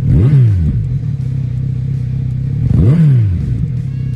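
Kawasaki Z900RS inline-four idling through a Moriwaki Monaka aftermarket muffler, blipped twice on the throttle: the revs rise and drop back quickly right at the start and again about three seconds in.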